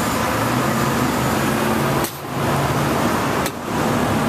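A steady mechanical hum with a low drone, briefly dipping twice.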